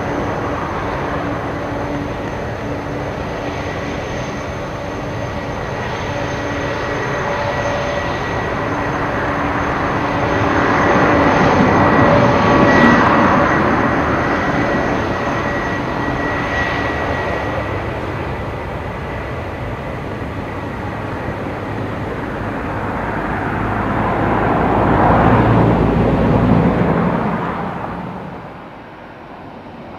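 Boeing 747's four jet engines running at high power with a steady whine as the jumbo rolls along the runway, the noise swelling twice as it passes. The sound drops away near the end.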